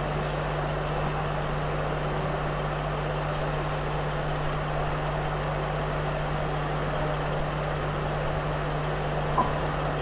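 Steady background noise with no speech: an even hiss over a low, constant hum, with one small tick near the end.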